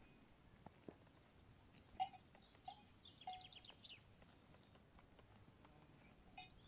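Faint birds calling: scattered short chirps, with a quick run of high repeated notes about three seconds in.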